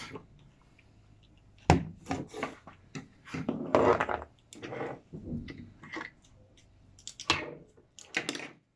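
Knocks and rustling from kitchen things handled on a table: a plastic blender jar set down and a foil-wrapped cream cheese block being cut and peeled open. A sharp knock comes about two seconds in, followed by scattered rustles and knocks, with two more near the end.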